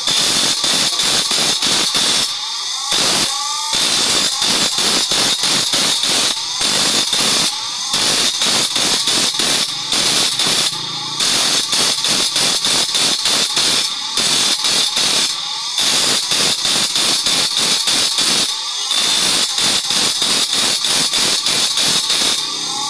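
Bench grinder's abrasive wheel grinding a steel blade being sharpened, sparks flying: a loud, harsh grinding hiss that pulses rapidly and evenly, with brief breaks every few seconds as the blade comes off the wheel.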